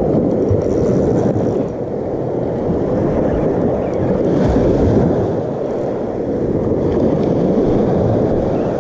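Small surf breaking and washing up the sand, mixed with steady wind rumble on the microphone.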